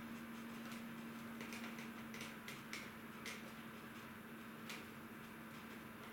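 Quiet room tone: a faint steady hum with a few light, irregularly spaced ticks, mostly in a cluster between about one and a half and three and a half seconds in, and one more near the end.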